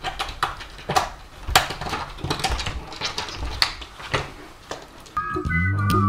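Pet door flap clattering and knocking in irregular clicks as a stout cat squeezes through it. Music starts about five seconds in.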